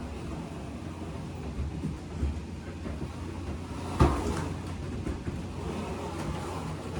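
Cabinet doors and items being handled and moved, with scattered light knocks and one sharp knock about four seconds in, over a steady low hum.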